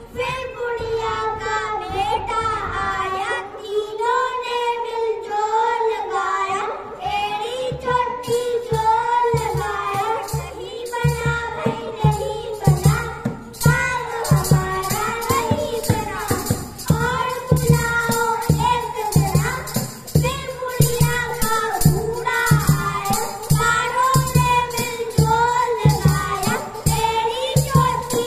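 A Hindi song sung in a high, child-like voice, joined after the first several seconds by a steady beat.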